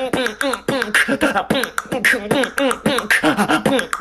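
A man's voice beatboxing: rapid vocal percussion clicks and snare-like hits woven together with pitched hums that bend up and down.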